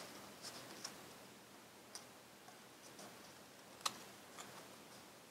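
Faint, scattered ticks and crinkles of thin colored construction paper being folded and creased by hand, the sharpest tick about four seconds in.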